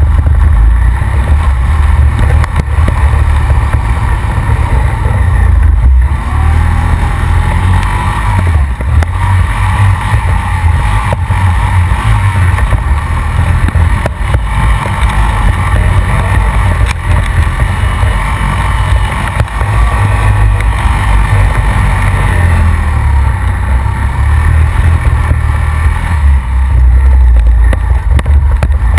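Honda Rancher ATV's single-cylinder four-stroke engine running steadily as it rides a rough mud trail, a heavy low drone with frequent knocks and rattles from the bumps.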